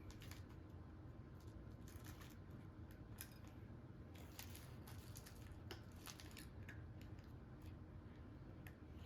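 Near silence with scattered faint clicks and rustles of small candy cookie decorations being picked from a pack and handled.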